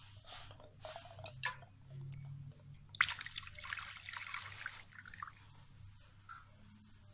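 Liquid poured from a metal saucepan onto a stone on a ceramic plate, splashing for about two seconds from about three seconds in. A few light knocks come before it.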